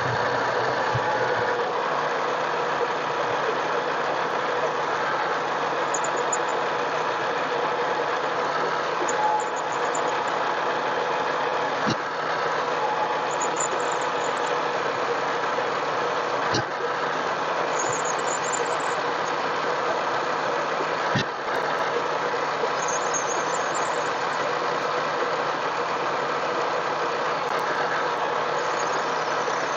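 Harbor Freight mini lathe running steadily with a constant motor whine and hum while taking a cut, with three brief sharp clicks spread through the middle.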